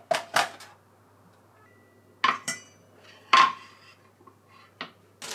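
Cookware and metal utensils clinking and knocking about six times, a couple of the clinks ringing briefly.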